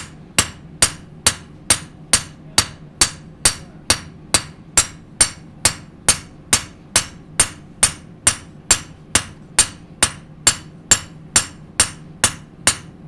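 Hand hammer striking a steel knife blade on an anvil in an even rhythm, a little over two blows a second, each blow with a short bright metallic ring. This is nama-tataki, the hand hammering that compacts and tightens the blade's steel.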